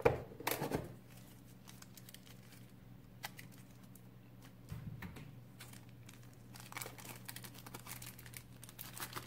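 Packaging crinkling as a camera battery is unwrapped by hand. The handling is loudest in the first second, followed by scattered crinkles and light clicks.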